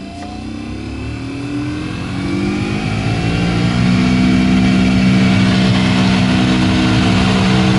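Suzuki Grand Vitara heater blower motor and fan spinning up, its hum rising in pitch over about four seconds and then running at a steady loud drone. It runs just as noisily on the lowest speed setting as on the highest, which points to the blower speed control not working.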